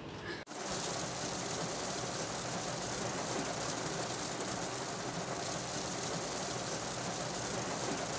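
Heavy rain drumming on a car's roof and windscreen, heard from inside the car as a steady hiss that starts abruptly about half a second in.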